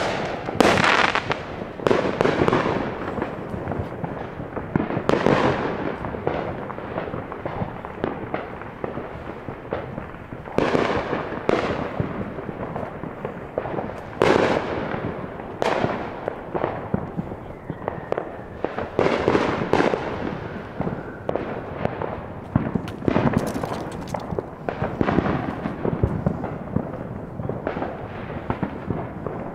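Consumer fireworks and firecrackers going off: loud bangs every few seconds, each trailing off in an echo, over a constant crackle of smaller pops.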